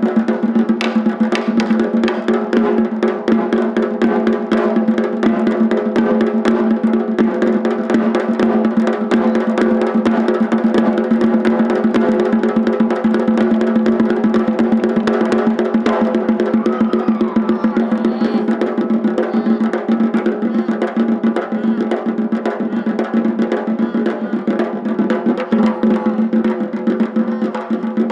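Gojinjo daiko taiko drums beaten in a dense, unbroken run of rapid strokes, the drumheads ringing steadily under the strikes.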